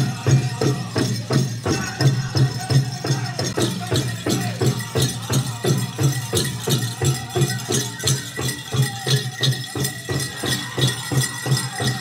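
Powwow drum struck in a steady, even beat with singers, and the jingling of the dancers' bells over it.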